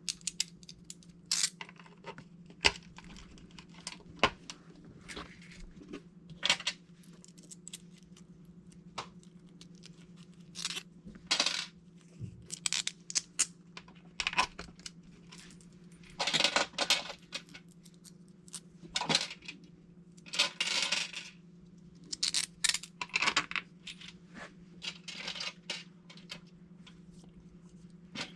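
Small metal screws and countersunk washers clinking and rattling as they are handled and swapped out on an RC truck's chassis: irregular light clicks and short rattling bursts over a faint steady hum.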